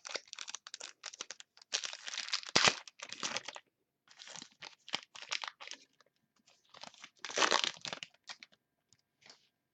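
Foil trading card pack wrapper being torn open and crinkled, with cards rustling as they are handled, in irregular bursts, loudest about two to three seconds in and again near the end.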